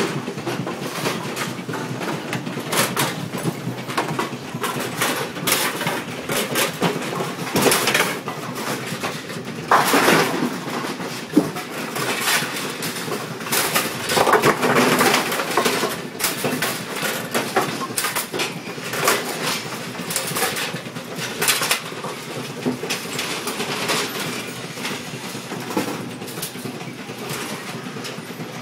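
AMF 8230 bowling pinspotter running through its cycle: a continuous clatter of metal linkages and pins knocking, with louder clanking bursts about ten and fourteen seconds in.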